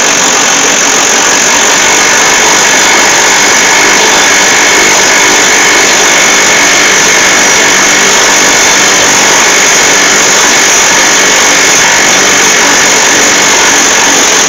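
Cordless impact wrench running hard without a break, driving a socket on the strut rod's end nut to spin it off, then cutting off sharply at the end.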